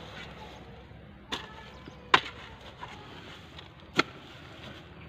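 A long-handled hoe chopping into a heap of dry earth and rubbish: three sharp strikes, the loudest about two seconds in.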